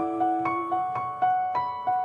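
Soft piano music: a gentle melody of single struck notes, a few a second, over sustained lower notes.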